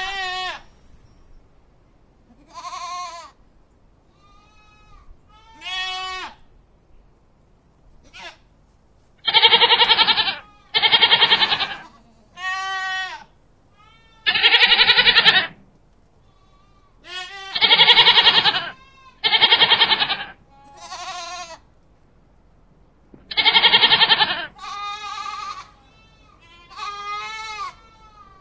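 Goats in a pen bleating, about a dozen separate wavering calls of roughly a second each, several of them very loud.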